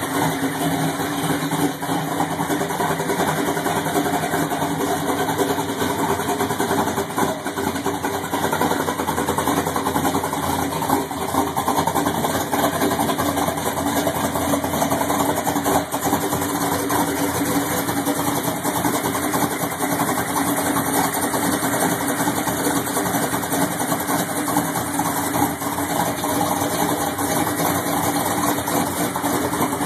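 A 1969 Ford's 429 big-block V8 running steadily at idle through custom ceramic-coated headers and Flowmaster mufflers, loud and even throughout.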